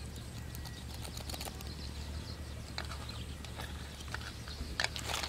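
Live catfish flapping and shifting in a steel basin as hands grab one, giving scattered wet slaps and knocks against the metal, louder and closer together near the end.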